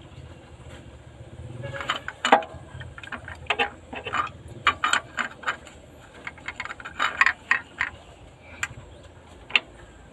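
Metal tools and parts clinking and knocking against each other: a run of irregular sharp clinks that starts about two seconds in and thins out near the end.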